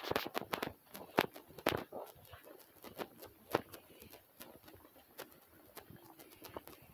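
Footsteps on a dirt and gravel trail, about two steps a second, louder in the first half and fainter toward the end.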